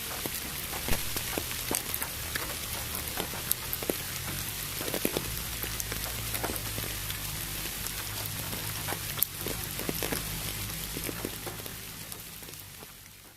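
Rain with sharp, close drop hits over a steady hiss, mixed with pink noise; it fades out near the end.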